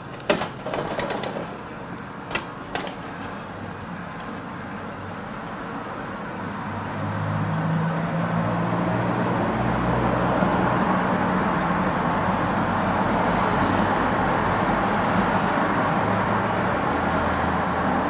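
Wood pigeons' wing slaps in a territorial fight: a sharp crack just after the start, a quick flurry right after it, and two more cracks about two and a half seconds in. From about six seconds in, a steady engine rumble with hiss swells up and holds, covering everything else.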